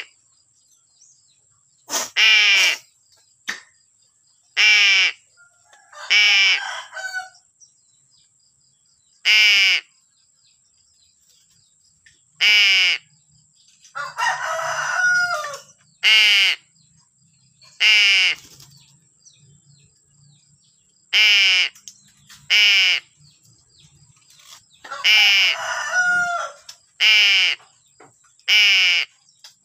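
Crow and Javan myna calling back and forth. Short, harsh, caw-like calls come every few seconds, and three longer, rougher, chattering calls are spread among them.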